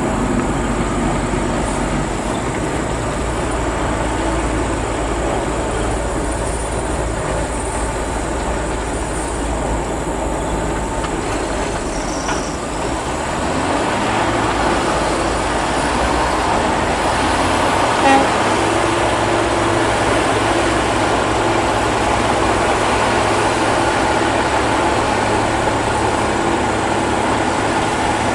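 Heavy diesel haul trucks driving past on a gravel road: steady engine and tyre noise, with one short sharp knock about eighteen seconds in.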